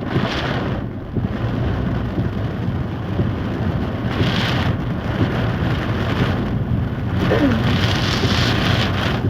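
Heavy rain pouring down, a dense hiss that swells in surges, with a low steady hum beneath it.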